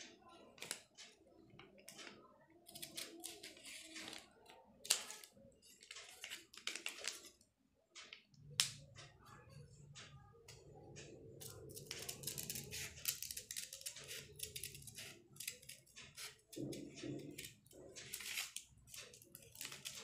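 Large steel scissors snipping through folded paper: a run of irregular, crisp snips and blade clicks as a fringed edge is cut.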